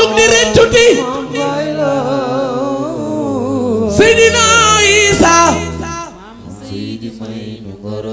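A man singing a Wolof religious praise song into a microphone, with long wavering held notes over a low sustained backing; the sound falls quieter about six seconds in.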